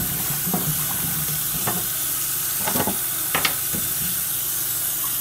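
Kitchen tap running into a steel bowl of sliced potatoes in a stainless steel sink, the water splashing steadily, with a few short knocks as the bowl and slices are handled.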